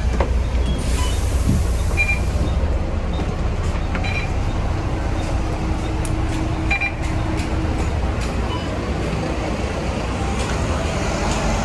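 Volvo B9TL double-decker bus's 9-litre diesel engine idling with a steady low rumble. Three short high beeps sound a couple of seconds apart.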